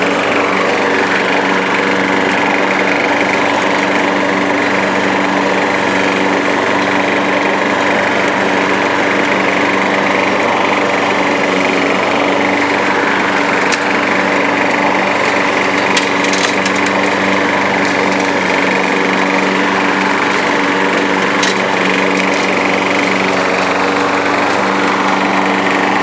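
Craftsman push mower engine running steadily at an even speed, after a new fuel line, a cleaned carburetor and a new air filter.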